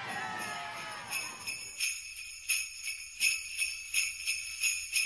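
Jingle bells shaken in a steady rhythm, about three shakes a second, starting about a second in as the crowd noise fades away.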